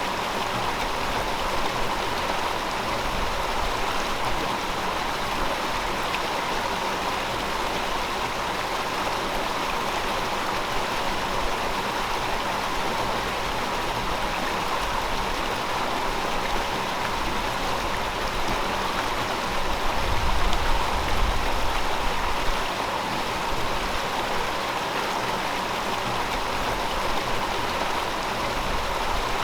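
River water flowing over rocks in a steady rushing babble, with a low rumble swelling briefly about two-thirds of the way through.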